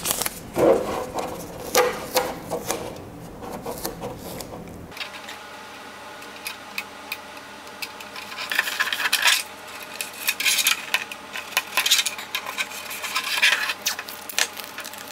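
A clear polycarbonate RC car body shell being handled while blue painter's tape is torn and pressed onto it: scattered clicks, crackles and rubbing of thin plastic and tape, with denser bursts about nine seconds in and near the end.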